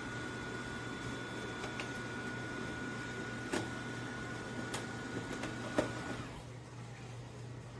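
MOVA S10 Plus robot vacuum running: a steady hum with a thin high whine that stops about six seconds in, and three light clicks around the middle.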